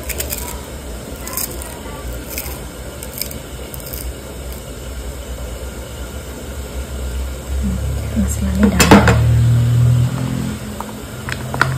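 Metal utensils clinking against steel pots and bowls in scattered short clicks. A low hum swells about eight seconds in and is loudest around nine seconds.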